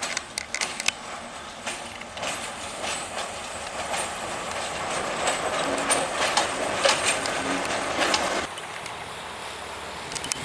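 Railway cars rolling past, their wheels clacking over the rail joints in quick irregular strikes above a steady rush of rolling noise. The sound drops abruptly to a quieter rumble about eight and a half seconds in.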